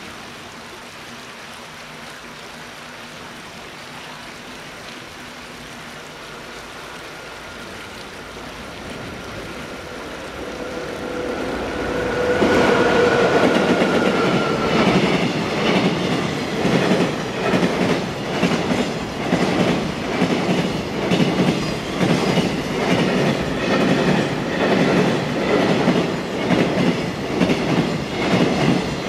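A JNR Class EF81 electric locomotive hauling a container freight train approaches with a rising rumble and a steady whine, and passes loudly about twelve seconds in. Its container flat wagons then clatter by, the wheels clicking over the rail joints in a steady rhythm of about one beat a second.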